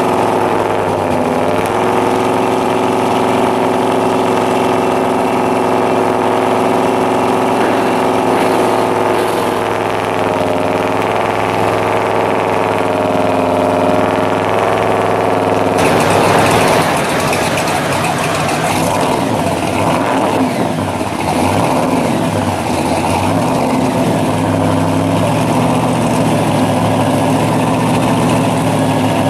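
Supercharged engine of a pro street 1957 Chevy running at a steady idle, revved unevenly for several seconds a little past halfway, then settling back to a steady idle.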